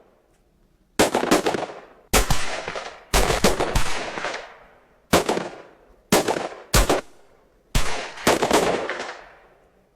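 AI-generated gunfight sound effect: about eight separate bursts of gunfire, each a short volley of shots followed by a long echoing decay, with short silent gaps between bursts.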